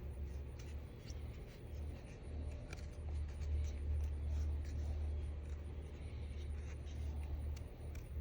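Handling noise: a low, uneven rumble with faint scattered clicks and scratches as a small stone is turned over in the hand.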